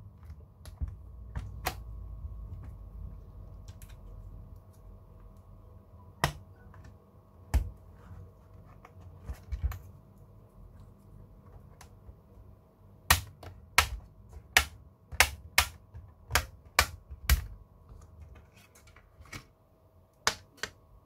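Sharp plastic clicks as the snap-in clips of a tablet's back cover let go under a plastic pry pick. They come singly at first, then as a quick run of about nine, roughly two a second, in the second half.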